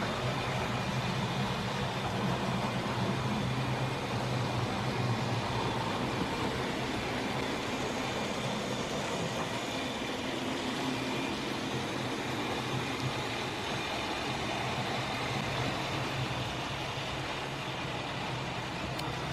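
Lima OO gauge model Crab 2-6-0 locomotive running on track, a steady hum from its freshly serviced tender-drive motor with the rumble of wheels on the rails.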